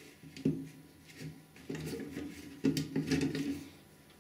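Plastic fittings inside a Geberit concealed toilet cistern being handled: two sharp clicks, about half a second in and near three seconds, between stretches of plastic scraping and rubbing.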